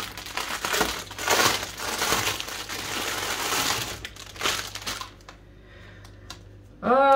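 A thin clear plastic bag crinkling as it is opened and bundles of embroidery floss skeins are pulled out of it. The crackling is dense for about four seconds, then dies down to a few light rustles.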